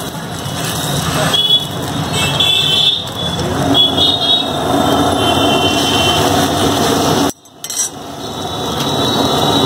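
Beaten egg frying on a paratha on a hot flat iron tawa, a dense steady sizzle with a steel spatula scraping and pressing across the griddle; the sound cuts out briefly about seven seconds in.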